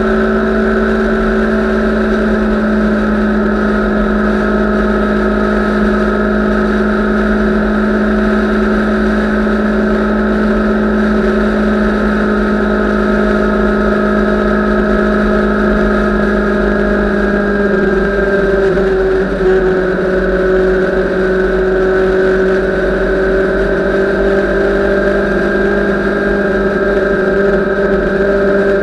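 Sport motorcycle engine running steadily at highway cruising speed, one held engine note under a constant wind rumble on the microphone; the note dips a little and settles at a slightly lower pitch about two-thirds of the way through.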